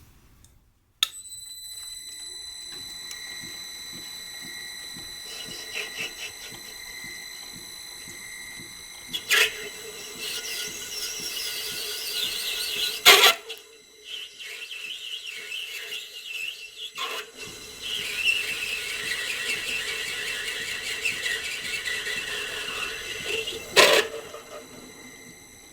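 A small metal lathe running with a steady high-pitched whine, while a cutting tool on a ball-turning attachment squeals and chatters against the spinning work in two long stretches. Sharp knocks come between the cuts.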